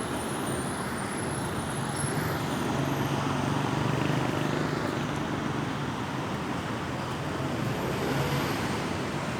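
Steady road traffic noise, with a passing vehicle's low engine hum swelling toward the middle and then easing off.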